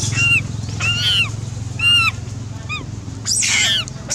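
A monkey giving a string of short, high-pitched squealing calls, each rising and then falling in pitch, one or two a second, over a steady low hum that cuts off near the end.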